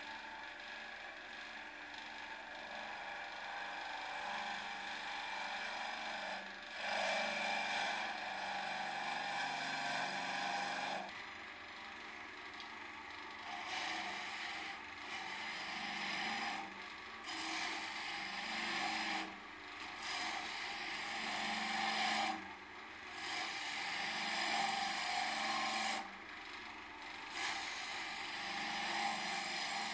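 Wood lathe running, with a small steel tool pushed into the end grain of the spinning wood blank, scraping and cutting in repeated passes. There is one long cut about a quarter of the way in, then a run of shorter cuts of two to three seconds each, with the lathe's steady hum between them.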